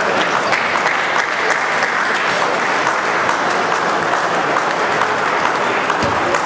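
Spectators applauding: a steady patter of many hands clapping that fades near the end.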